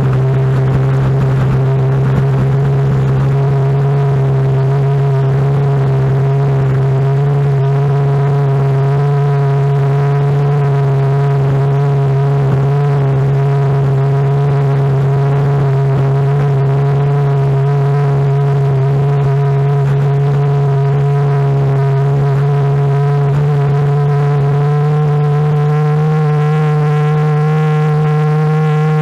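Sea-Doo personal watercraft engine running at a steady speed, its pitch rising slightly about 25 seconds in.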